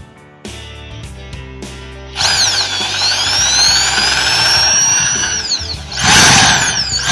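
Hoyoma corded impact drill, set to impact drilling, run free with no bit: its motor whines for about three seconds, the pitch dipping and then rising as the trigger is worked, stops, then runs again in a shorter, louder burst near the end. Background music plays throughout.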